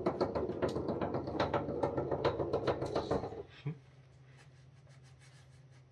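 The firewall's circuit board and its steel tray being picked up and handled: a dense run of quick clicking and rustling that ends with a soft knock a little over three and a half seconds in. After that there is only a faint low hum.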